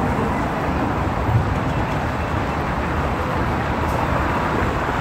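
Steady outdoor noise of a crowded city street: a walking crowd and road traffic, with a low rumble underneath.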